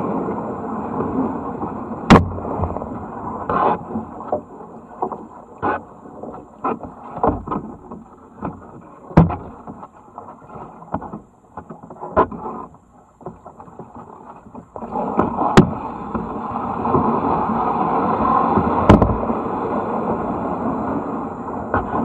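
A tandem kayak being paddled: water rushing and splashing around the boat, broken by sharp knocks every couple of seconds as the paddles strike the kayak. The water noise dips midway and swells again in the second half.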